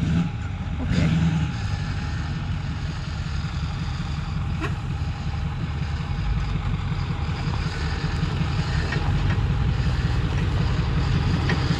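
Lifted Ford F450 Power Stroke diesel pickup crawling up a rocky trail toward the microphone, its engine a steady low rumble that grows louder as it nears. A single sharp click comes a little before halfway.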